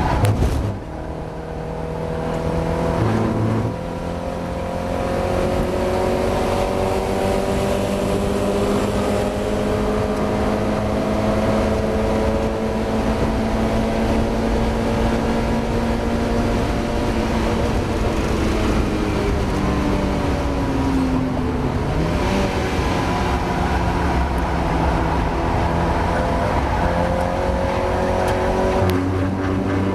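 Mazda MX-5 race car's four-cylinder engine pulling hard, its pitch climbing slowly through long stretches. Gear changes come about half a second in and again about three and a half seconds in, a brief dip in pitch falls around twenty-one seconds, and another change comes near the end.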